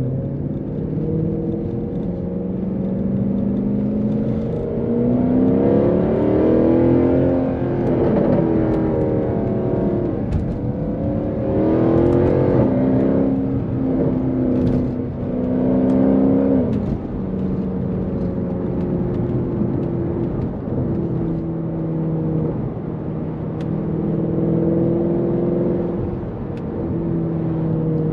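Mercedes C63 AMG's naturally aspirated 6.2-litre M156 V8 under way, its note climbing and dropping several times through the first half, then running more steadily with one smaller swell near the end.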